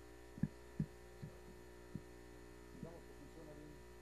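Steady electrical mains hum from the auditorium sound system, with a few short dull low thumps in the first two seconds.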